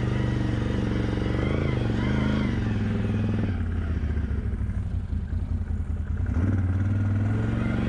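ATV engine running steadily. About three and a half seconds in the note drops and turns rough and uneven, then it picks back up to a steady run near six seconds in.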